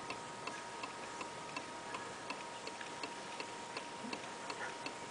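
Regular, even ticking, nearly three ticks a second, over a faint steady high tone.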